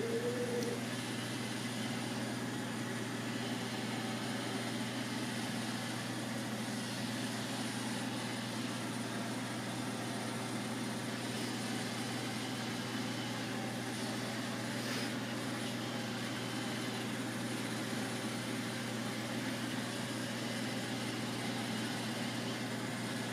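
Roomba robot vacuum running with a steady motor hum.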